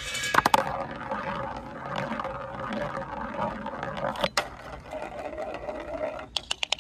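Marble-run ball clattering from a metal channel into a large plastic funnel with a few clicks, then spinning round the funnel with a steady whirring hum for about four seconds. It drops through the hole with a sharp knock, rolls along a track, and ends in a quick run of clicks as it rattles into a wooden bowl.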